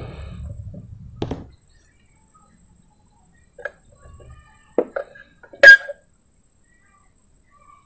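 A few short, light metallic clinks and taps from soldering work on an aluminium amplifier heatsink, as the soldering iron and component leads touch the IC pins and metal; the loudest clink comes about two-thirds of the way through.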